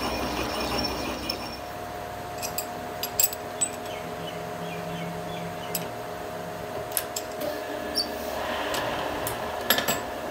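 Lathe running with a thread tap turning against a gear blank, dying away after a second or two. Then metal clicks and clinks of a chuck key working the lathe chuck follow, over a faint steady hum, with a louder cluster of knocks near the end.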